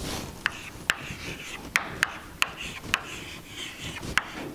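Chalk writing on a chalkboard: scratchy strokes with about seven sharp, irregular taps as the chalk strikes the board.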